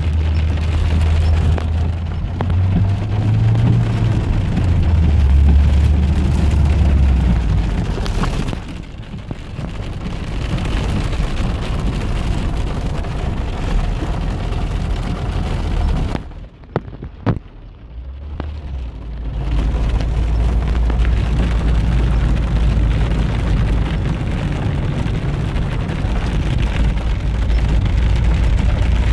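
Rain falling on a car, with the car's engine and tyres running on a wet road, heard from inside the cabin as a steady noise over a low rumble. About two-thirds of the way through the sound drops away sharply for a few seconds, with a couple of clicks, then returns.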